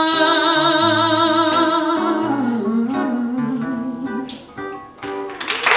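A woman sings the last held note of a gospel song with a wavering vibrato, then a falling run of notes over plucked acoustic guitar; the music dies away, and crowd applause and cheering break out right at the end.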